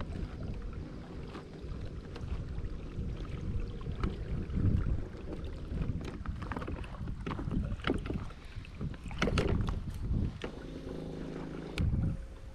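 Kayak moving through sea water: irregular splashing and sloshing of water against the hull, with wind rumbling on the microphone. A steady hum comes in near the end.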